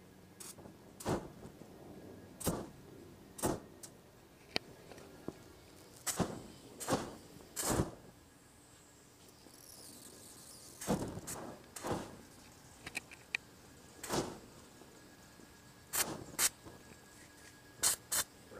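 Small flames of burning fuel flaring on concrete, heard as a series of about fifteen short whooshing bursts at irregular intervals.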